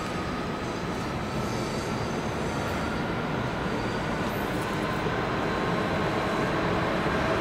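Diesel locomotive-hauled train running on the rails: a steady mix of engine and wheel-on-rail noise with a faint whine, slowly getting louder as it approaches.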